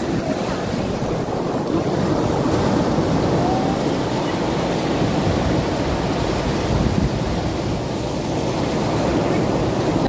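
Rough sea surf breaking and washing up a pebble shore: a steady, unbroken rush of water.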